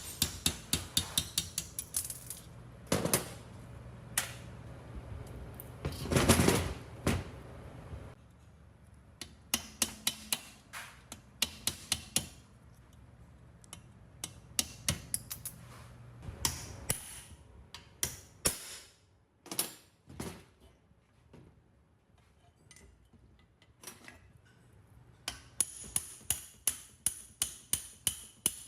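Runs of quick, light hammer taps on metal, several strikes a second, with a heavier knock about three seconds in and a longer, louder burst around six seconds in.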